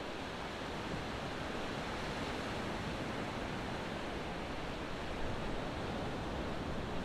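Ocean surf washing onto a beach: a steady, even rush of breaking and receding waves with no distinct single crash.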